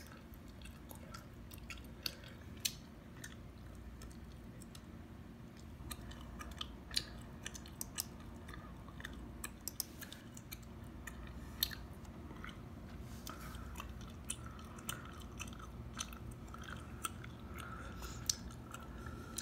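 Gum chewing close to the microphone: irregular wet smacks and clicks, with a few sharper snaps standing out.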